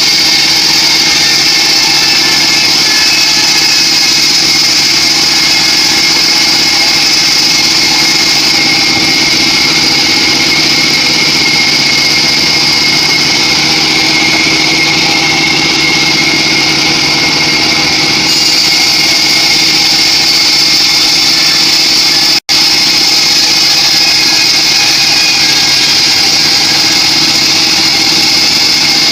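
Homemade band sawmill running steadily as it saws a teak log, a constant machine drone with a high whine and hiss. The sound drops out for an instant about three quarters of the way through.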